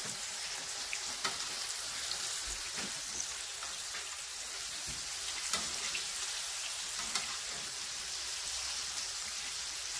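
Ground-beef patties frying in a pan: a steady sizzle with a few faint ticks.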